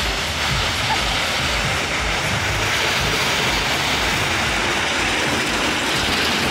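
A small funfair roller coaster train rolling along its steel track, a steady rolling noise of the cars on the rails.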